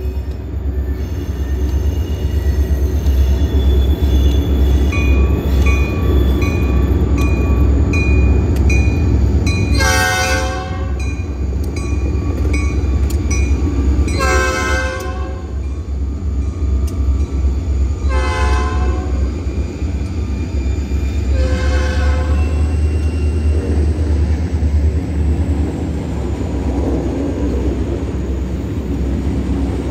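Two EMD SD40-2R diesel locomotives rumbling past at a grade crossing. The lead unit sounds its air horn in four blasts about four seconds apart. A bell rings in quick, steady strokes for several seconds before and into the first blasts.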